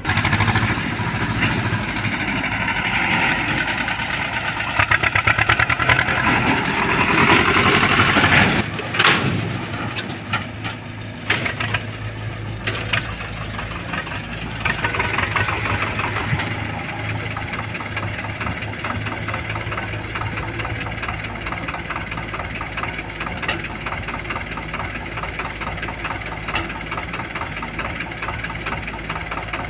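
Diesel engines of farm tractors and a crawler excavator running. They are louder for the first eight seconds or so, drop off sharply at about nine seconds, and then run at a steady idle with a fast, even knocking beat.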